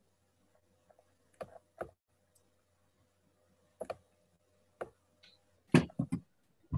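Scattered clicks from a computer keyboard and mouse in use: a few single light clicks, then a louder cluster of taps near the end.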